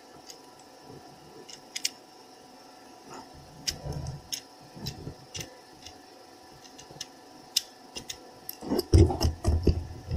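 A die-cast toy tow truck handled and steered: scattered light clicks and taps. Near the end its hard plastic tires roll across a tabletop with a low rumble.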